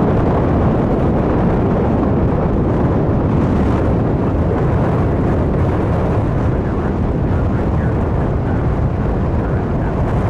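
Jet aircraft engine noise: a loud, steady low rumble that eases off slightly toward the end.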